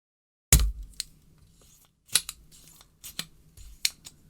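Spring-loaded solder sucker (desoldering pump) being fired and re-cocked on a joint of unleaded factory solder: a loud snap with a thud about half a second in, then a string of sharp plastic clicks and snaps, about six in all.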